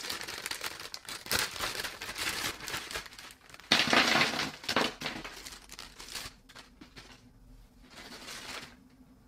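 Crinkling plastic packaging: a bag of small sealed plastic blind-bag sachets being handled and tipped out onto a table. The rustle is loudest about four seconds in, then dies away.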